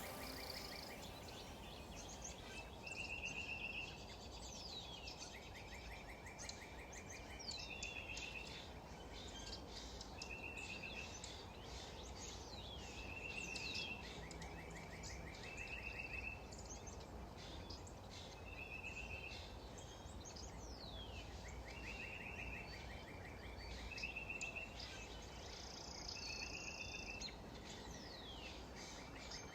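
Faint bird chirps and short trills, repeating every two to three seconds over a steady low background hiss.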